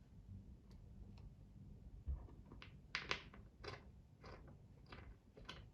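A low thump, then a series of short, irregular light clicks and taps as chair parts and screws are handled and fitted during assembly.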